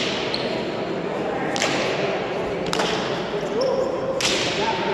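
Basque pelota rally: four sharp smacks of the hard ball against the frontón wall, floor and players' strikes, about one every second to second and a half, each ringing in the large hall, over a low murmur of spectators.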